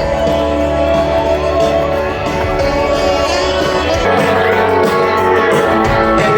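Guitar-led rock music playing steadily throughout.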